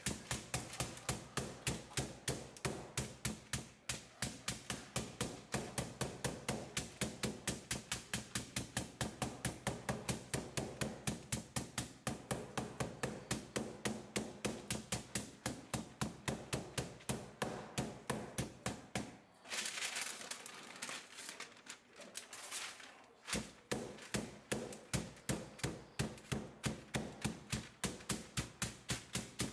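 Metal meat mallet pounding chicken breast through parchment paper on a cutting board, a steady run of dull blows at about four a second to flatten the meat. The pounding stops for a few seconds about twenty seconds in, with some rustling, then carries on.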